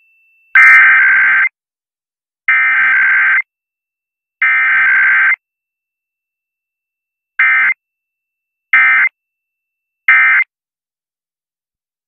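Emergency Alert System SAME digital data bursts: three loud, harsh electronic header bursts about a second long and two seconds apart, then after a pause three short end-of-message bursts. Together they mark a Required Weekly Test.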